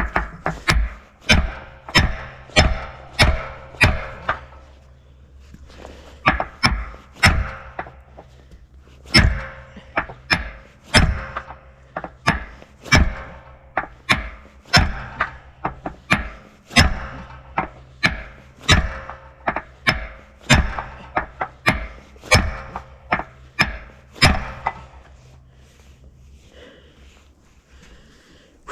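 A maul striking steel parts of a log loader over and over, heavy blows about two a second in runs with short pauses between them, each with a brief ring. This is work to drive out a stuck pin or flatten bent metal.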